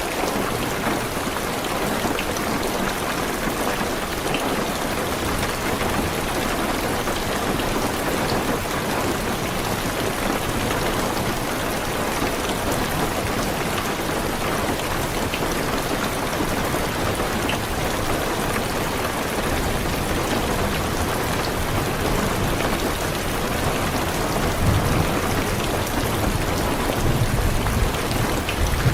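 Heavy rain drumming steadily on a car's roof and windows. About two-thirds of the way through a low rumble of thunder comes in and grows louder near the end.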